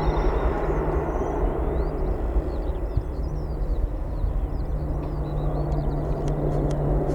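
Aircraft engine noise: a steady rumble with a low hum, with small birds chirping over it and a few light ticks near the end.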